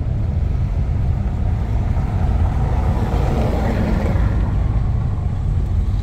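Car driving over a cobblestone street, heard from inside the cabin: a steady low rumble, with a wider rushing noise that swells and fades around the middle.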